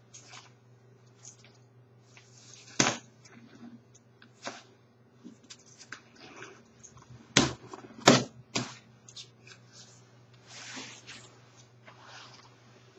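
The nylon shell of a quilted winter parka rustles as the press-stud snaps down its front are pulled open. There are a few sharp pops: the loudest about three seconds in and two close together in the middle, with a softer rustle of the fabric near the end.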